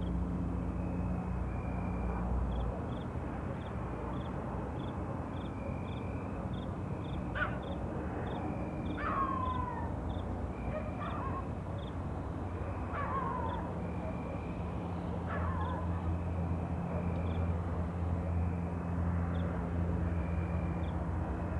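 Night ambience: insects chirping in short regular pulses, about two a second, over a steady low hum that swells in the second half. Five calls sliding downward in pitch come from an animal, spread over a few seconds in the middle.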